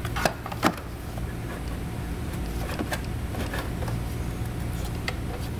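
Plastic timing-belt cover being worked into place on the engine by hand: a few light plastic knocks and clicks over a steady low hum.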